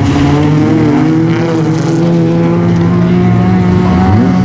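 Several folkrace cars' engines running at high revs together on a dirt track, their overlapping engine notes held steady while one climbs slowly in pitch near the end, over the hiss of tyres on loose gravel.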